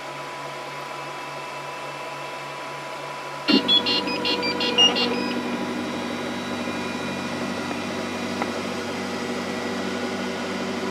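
FlashForge Creator X 3D printer starting a print. A steady hum, then about three and a half seconds in the printer's buzzer plays a short tune of quick beeps as its stepper motors start up. The motors hum steadily as they drive the build plate up toward the dual extruder nozzles.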